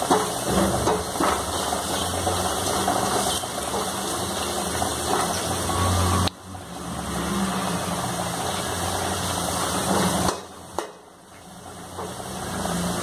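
A steel spatula scraping and stirring a masala paste around an aluminium kadai, over a steady mechanical hum. The sound drops out briefly about six seconds in and again around ten seconds in.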